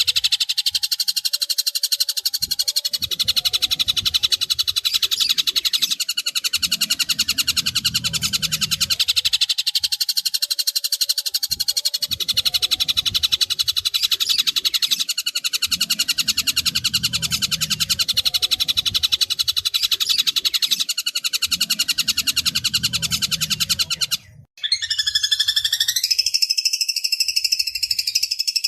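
Long-tailed shrike song from a mastering recording: a fast, harsh, steady rattling chatter for about 24 seconds that stops abruptly, followed after a brief gap by a different call with rising and falling whistled notes.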